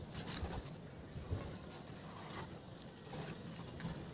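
Faint rustling and scraping of rope being pulled and wound tightly around a pole, with a few short scuffs along the way.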